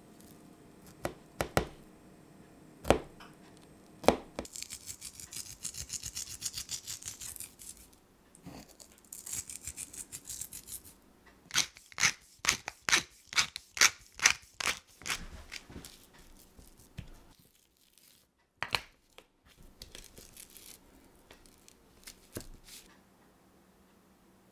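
Knife scoring raw pork chop fat on a metal tray with a few sharp clicks, then a light patter of seasoning and a pepper mill grinding black pepper in a rapid run of clicks, about three a second.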